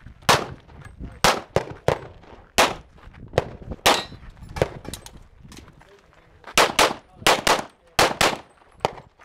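Rapid pistol fire from an STI Edge in .40 S&W: about fourteen shots, spaced roughly a second apart at first, then after a short pause mostly in quick pairs about a fifth of a second apart.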